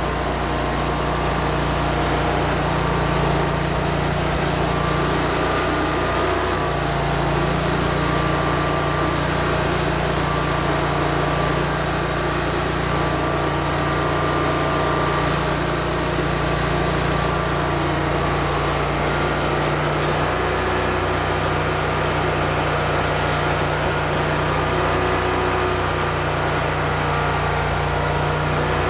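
An engine running steadily at an even speed, its pitch shifting slightly about six seconds in and again about twenty seconds in.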